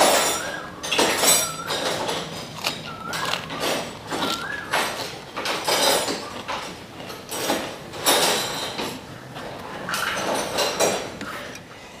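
Close-miked chewing of a crisp fresh lettuce-leaf wrap: wet crunches come every half second to a second, with short pauses between bites.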